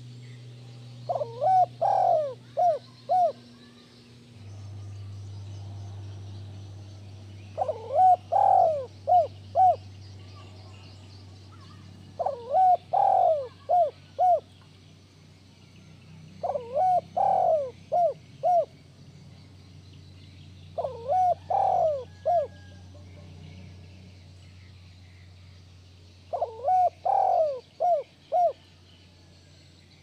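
Spotted dove cooing: six phrases of four or five coos each, one phrase every four to five seconds, over a steady low hum.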